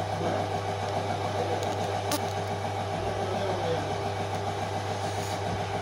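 Steady low mechanical hum, with one sharp click about two seconds in.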